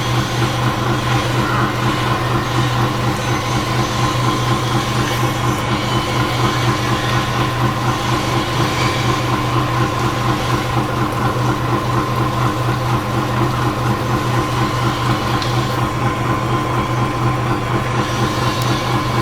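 Ship's diesel engine running steadily: a low drone with a fast, even pulse and a steady whine above it.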